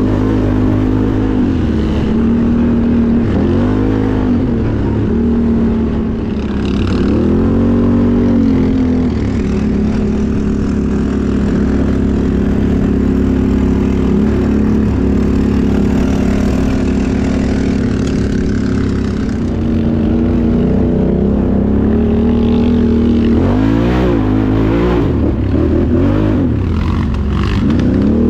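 Can-Am Outlander XMR 1000R's Rotax V-twin engine running, revving up and back down with the throttle several times, with a steadier stretch through the middle.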